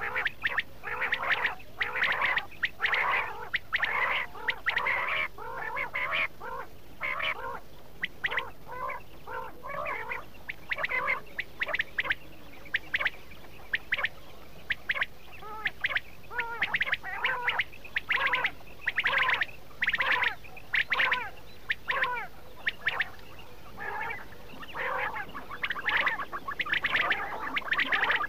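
Quail calling: short call notes repeated in rapid clusters, with a few brief pauses, the kind of recording used as a lure call for quail hunting.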